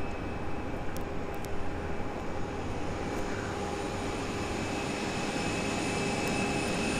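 Steady whine and rumble of jet aircraft turbines running at the airport: several constant high tones over a broad rush, growing slightly louder toward the end.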